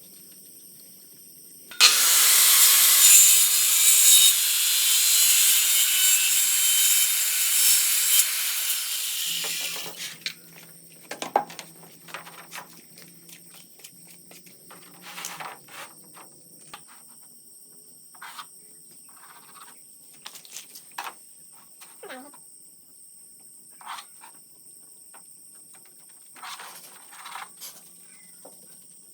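An electric power saw cutting, starting suddenly about two seconds in and running for about eight seconds. Light knocks and taps follow, as pieces are handled.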